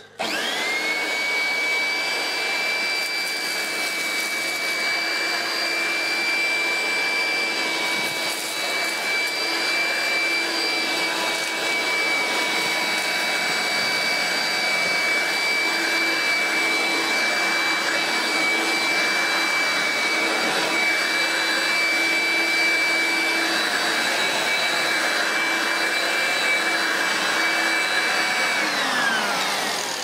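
Hoover Heavy Duty BrushVac S1137 corded handheld vacuum switched on, its motor rising to speed and then running steadily with a high whine as it is pushed over carpet, picking up dirt. Near the end it is switched off and the whine falls away as the motor winds down.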